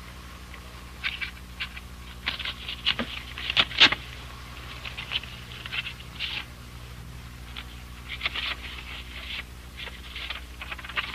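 Paper envelope being torn open and the letter inside pulled out, in clusters of short crackling paper rustles and tears, the sharpest a little under four seconds in. A steady low hum runs underneath.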